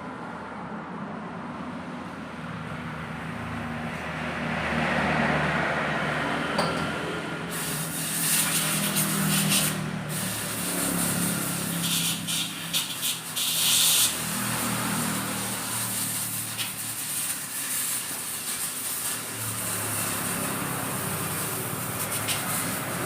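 Motorcycle engine running with a shifting hum, and several bursts of loud hissing spray in the middle.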